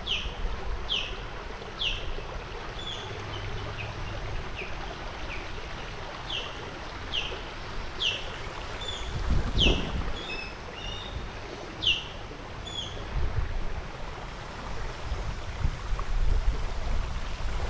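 A songbird calling a series of sharp, high, down-slurred notes about once a second, with a few short chirps mixed in, over a steady low outdoor rumble and hiss. The bird falls silent about 13 seconds in.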